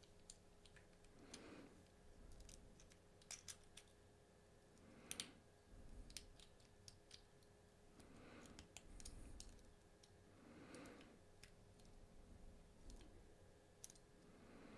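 Faint, irregular clicks and scrapes of a hook pick and tension tool working inside a Bell Armoury 200 padlock's keyway, with soft breathing every few seconds.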